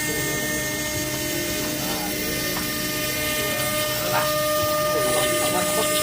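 CNC milling machine running, a steady whine made of several held tones.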